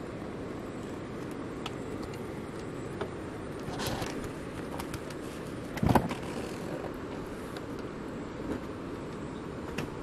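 Steady rushing wind noise, with a brief rustle about four seconds in and a single loud thump about six seconds in.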